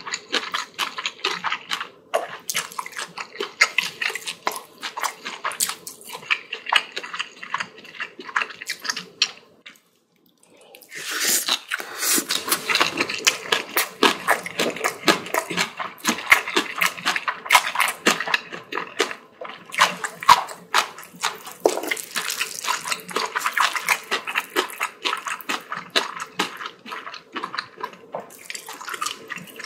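Close-miked wet chewing and smacking of a mouthful of spicy bibimbap, a dense run of small mouth clicks that stops briefly about ten seconds in, then carries on.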